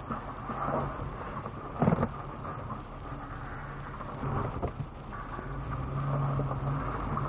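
Lexus GX470's V8 engine idling steadily while the truck stands still, heard from inside the cabin, with a single short knock about two seconds in.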